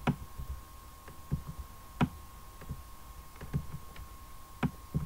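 Computer mouse button clicking, about six sharp clicks at irregular intervals as strokes are drawn, over a faint steady whine.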